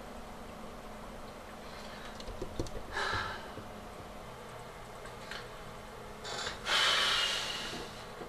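A man's breath sounds over a steady low hum: a short noisy breath about three seconds in, then a long, louder exhale like a sigh near the end.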